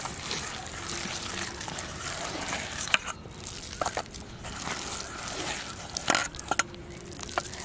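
Hands squeezing and kneading a wet, grainy mash in a steel bowl: soft wet squelching, with a few sharp ticks scattered through.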